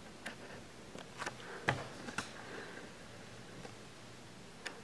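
Quiet room tone with a handful of light handling clicks and taps, about six in all, the sharpest a little under two seconds in.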